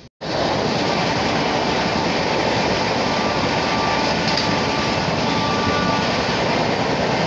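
Loud, steady rush of Indian Railways passenger coaches passing close alongside on the next track: wheels on rails and rushing air. It starts suddenly a moment in and holds at a constant level.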